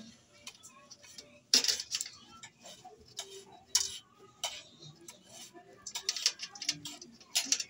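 Irregular small clicks, taps and clinks of fingers working a bare wire onto a small plastic part of a rice cooker's wiring, with several sharper knocks, the loudest about a second and a half in.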